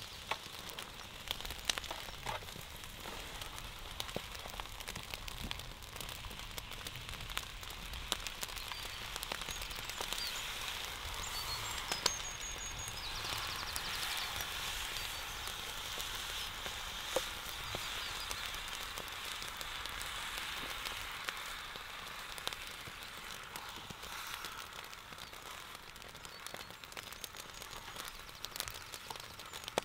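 An outdoor cooking fire crackling and hissing, with sharp pops scattered throughout.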